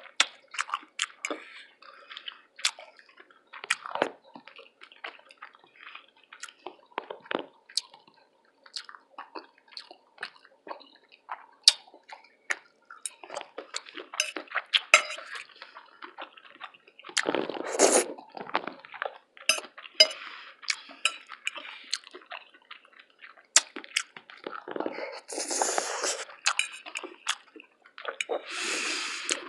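Close-miked wet chewing and mouth sounds: many sharp lip smacks and clicks, with a few longer, louder noisy stretches about halfway through and near the end.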